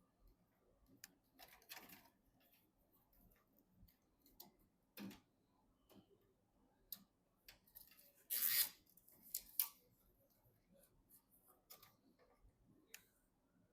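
Scattered light clicks and taps with a few brief scraping rustles, the loudest a little past the middle, from computer parts and packaging being handled during assembly.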